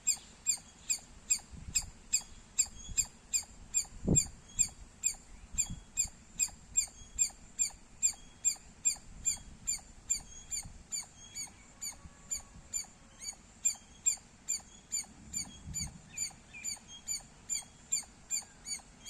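Indian squirrel chirping loudly and repetitively: short, sharp, high chirps at an even pace of about two to three a second. A single low thump about four seconds in.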